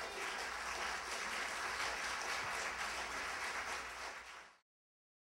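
Audience applauding, a dense steady clapping that fades out about four and a half seconds in, leaving silence.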